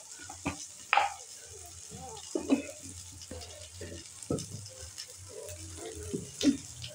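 Oil sizzling steadily in a wok under Maggi noodles, vegetables and spices. A few sharp light clicks and knocks sound now and then.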